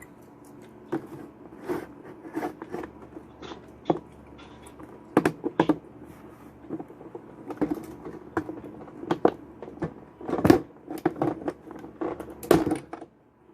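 Plastic housing of a Keurig coffee maker being pried at by hand: irregular clicks, knocks and creaks of plastic, with two louder knocks in the last few seconds. The housing does not come apart.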